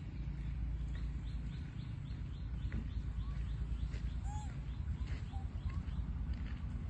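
Outdoor forest-edge ambience: a steady low rumble, with a few short chirps, the clearest about four seconds in, and faint scattered ticks.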